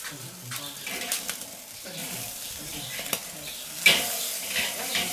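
Pork belly slices sizzling on the grate of a charcoal kettle grill over direct embers, with a few light clicks of metal tongs on the grate. About four seconds in, a sharp metallic clack as the tongs turn a slice, and the sizzle gets louder.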